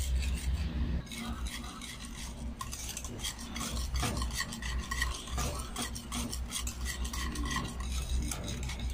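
Wire whisk beating a thick cream and condensed-milk mixture in a bowl: quick repeated strokes, the wires clicking and scraping against the bowl.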